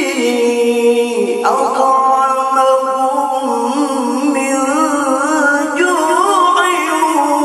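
A qari's solo male voice in a long, ornamented melismatic recitation, holding notes with wavering turns. About a second and a half in, the voice leaps up to a higher held note.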